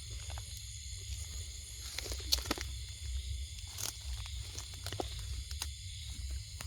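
Scattered short crackles and clicks of rustling in dry leaves and litter, over a steady low rumble and a steady high hiss.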